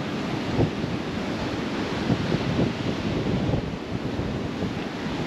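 Ocean surf rushing in big waves, with wind buffeting the microphone in uneven gusts.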